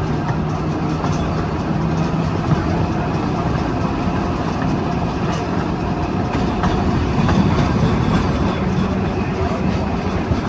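A 1926 double-truck Birney trolley car running along the track, heard from on board: a steady rumble of wheels on rail with a low hum and occasional clicks.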